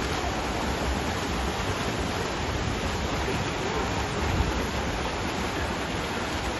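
Several swimmers racing freestyle, their splashing merging into a steady wash of water noise that echoes around the pool hall.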